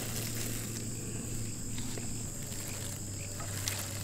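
Crickets chirring steadily in a high, continuous chorus, with a low steady hum underneath.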